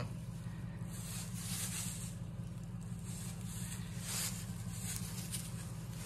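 Soft rustling of straw bedding as a newborn calf noses and steps about in its pen, over a steady low hum.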